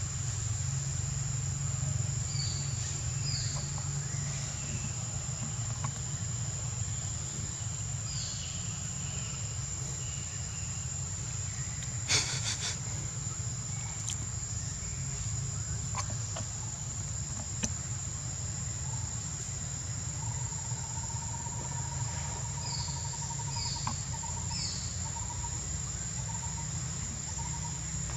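Forest ambience: a steady high-pitched insect drone, with a few short bird chirps and a steady low rumble underneath. A single sharp click about twelve seconds in.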